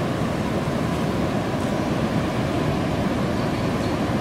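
Steady rush of fast-moving floodwater churning into white water.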